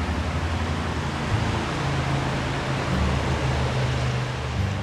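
Small river rushing steadily past, running high after rain.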